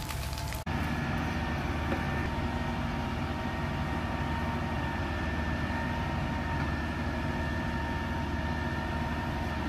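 Fire apparatus engine and pump running steadily, a constant low drone with a faint high whine held over it. It cuts in abruptly about half a second in.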